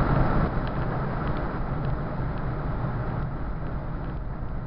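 Road noise inside a car's cabin on a wet highway in rain: a steady low rumble with tyre hiss, easing slightly, and a few faint ticks.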